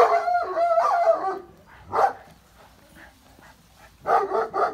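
Dog vocalizing: a drawn-out, wavering cry at the start, a single short bark about two seconds in, and a quick run of barks near the end.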